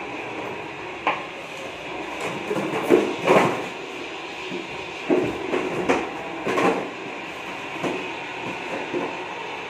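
A large play ball knocking and rolling on a tiled floor as a beagle puppy noses it along, in irregular thumps and bumps over a steady background hum.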